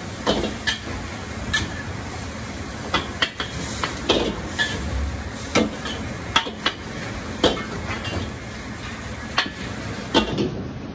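Metal clanks of a ladle and wok, about a dozen sharp strikes at irregular intervals, over a steady sizzle of noodles pan-frying in oil in a wok.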